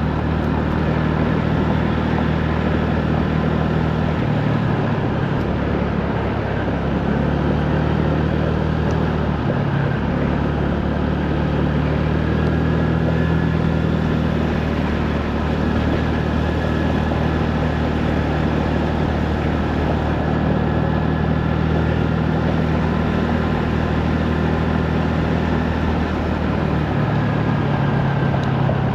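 Honda Navi mini motorbike's small single-cylinder engine running steadily on the move, over a steady rushing noise. Its note shifts a few times, around 4, 10 and 27 seconds in.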